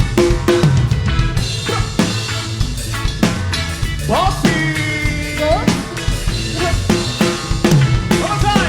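Live reggae band playing an instrumental passage: drum kit with bass drum, snare and rimshots keeping a steady beat over the bass line, with a few sliding notes midway.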